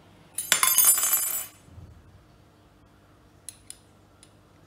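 A small metal spoon scraping and clinking inside a small glass bowl for about a second while scooping asafoetida powder, followed by three light clinks.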